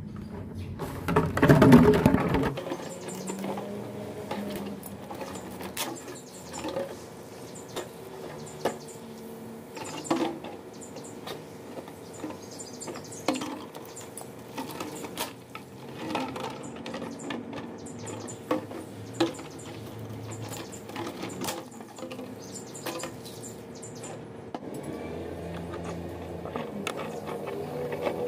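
Empty plastic water bottles being handled and cut with a knife: plastic crinkling and knocking, with scattered short scrapes and clicks as the blade works through the thin plastic. The loudest rustle comes about two seconds in.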